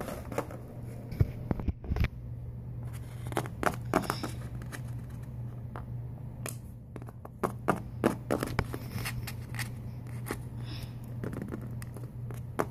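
Small plastic toys handled close to the microphone: scattered clicks, taps and scrapes as pieces are moved and a small hinged plastic box is handled, over a steady low hum.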